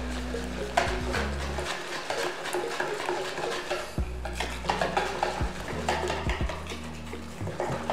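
Wire whisk stirring a thin flour-and-water batter in a plastic mixing bowl, with quick irregular clicks and scrapes as the wires knock against the bowl.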